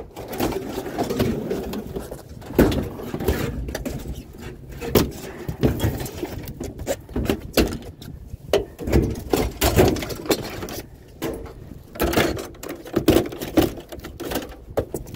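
Irregular knocks and clunks of scrap items being handled and loaded, one to a few a second, with rustling and scraping in between.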